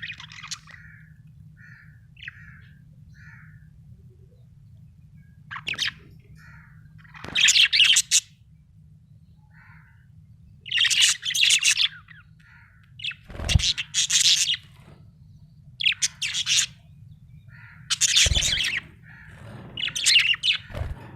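Budgerigar chirping and chattering in bursts of about a second, with soft short calls in between: the chatter of a contented budgie. A low steady hum runs underneath.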